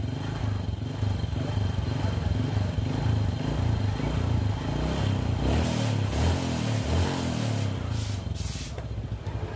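Honda Supra Fit's small single-cylinder four-stroke engine idling on the stand, its beat wavering a little as the idle and air-mixture screws of the freshly rebuilt carburettor are tuned. Two short hissy rushes come in around the middle and near the end.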